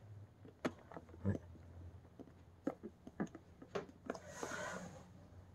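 Faint clicks and light knocks of small parts being handled and fitted during reassembly of a Kirby vacuum transmission, with a short scraping rustle about four seconds in.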